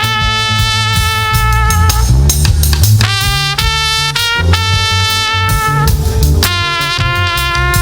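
Live gospel band music: a lead instrument holds long melody notes over drum kit and bass, sliding up to a new note about two to three seconds in.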